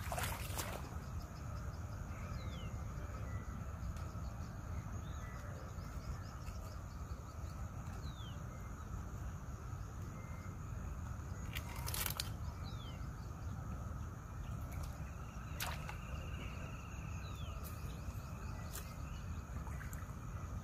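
Outdoor ambience: a steady low rumble like wind on the microphone, with faint short falling chirps and a few sharp clicks scattered through.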